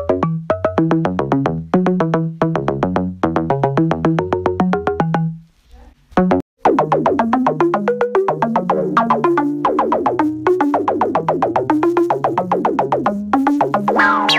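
Synthesizer-like electronic music of fast, chopped, repeated notes. It cuts out briefly about five and a half seconds in, then resumes with denser, blurred notes.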